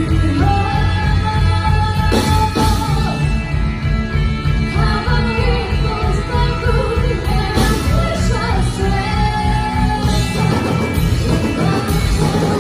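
Live rock band playing: drums and bass under a lead line of long held, bending notes.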